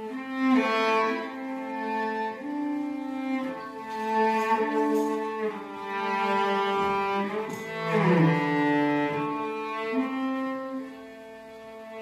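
Background music: a slow melody of long held notes on bowed strings, cello-like, with one sliding note about two-thirds of the way in.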